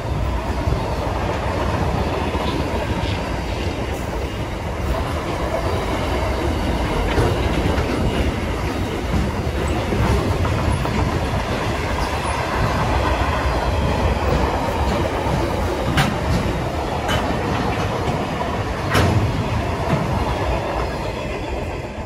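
Container freight wagons rolling past at speed: a steady rumble of steel wheels on rail with clickety-clack over the rail joints, and a few sharp clicks in the last third. The sound starts to fall away as the last wagon passes at the very end.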